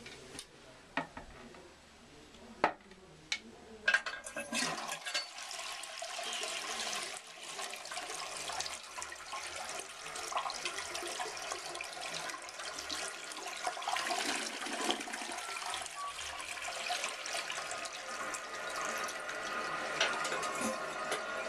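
A 1991 Artesian Aquamiser toilet flushing. A few sharp knocks come in the first four seconds, then water rushes and swirls in the bowl steadily for the rest of the time.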